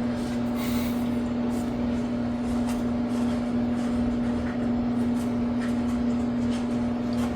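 Steady machine hum with one strong, even tone, with a few faint rustles and light handling knocks as the water heater's insulation is tucked back into the lower panel.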